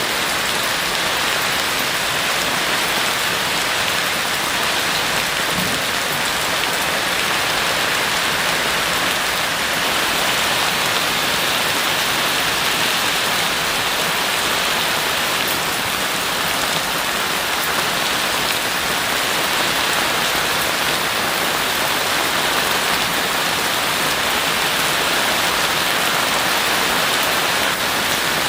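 Heavy rain falling steadily, a dense even hiss of drops on surfaces with no letup.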